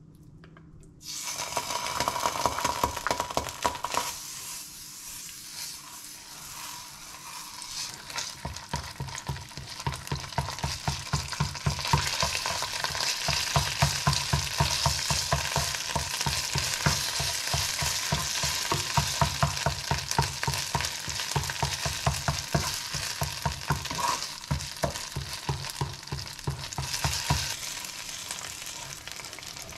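Chunks of tomato hitting hot oil in a frying pan and sizzling, then stirred and scraped around the pan with a spatula in quick regular strokes. Near the end the stirring stops while water is poured in from a kettle, over the continuing sizzle.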